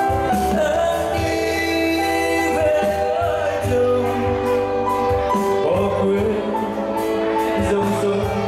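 Live band music: a man singing into a microphone over keyboard and a drum kit, with a steady cymbal beat.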